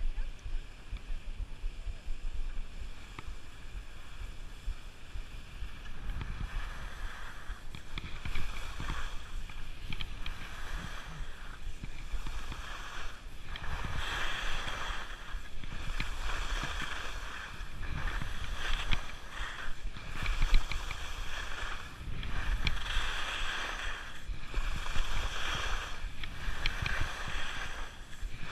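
Skis scraping and hissing over spring snow, quieter for the first few seconds and then swelling in surges every couple of seconds as the skier turns, over a low rumble of wind on the microphone.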